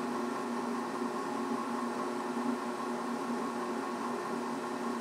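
Steady mechanical hum with a few constant tones over a faint hiss, unchanging throughout, like a motor or fan running in the background.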